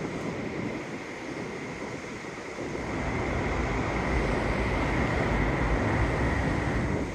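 Rushing wind buffeting the microphone with a low rumble, growing louder about three seconds in.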